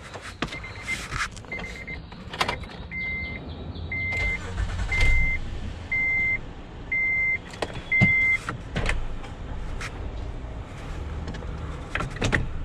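A car's warning chime beeping, a steady high beep about once a second, six louder beeps in a row in the middle, with a few sharp knocks and clunks around it.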